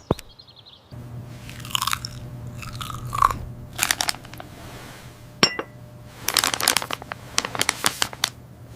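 Crunching, in several bouts of quick crunches over a steady low hum that comes in about a second in.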